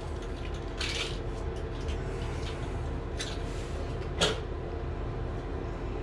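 Small parts and tools being handled at a work spot: a short rustle about a second in, a few faint ticks, and one sharp click about four seconds in, over a steady hum.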